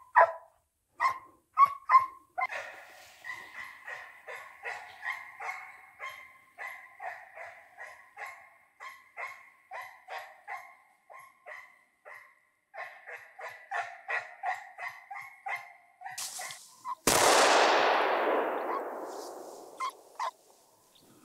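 Drever hound baying steadily on a hare's trail, about two barks a second. About seventeen seconds in, a single gunshot rings out and echoes away over a few seconds: the shot that drops the hare.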